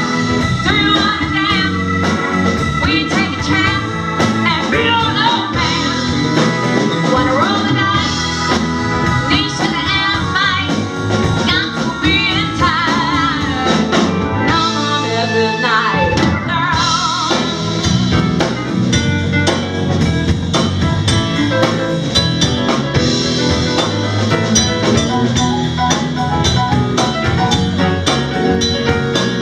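Live band playing a bluesy rock song, with guitar, drum kit and singing.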